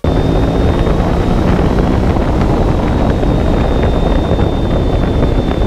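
Yamaha R1 superbike's inline-four engine running steadily at highway speed, heavily buffeted by wind on the camera microphone, with a faint steady high whine above it.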